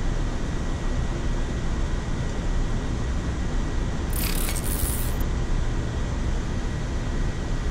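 Steady in-flight cockpit noise of a Boeing 787-9 on approach, an even rush of airflow and engine noise with a faint steady high tone. About four seconds in comes a brief crisp hiss lasting about a second.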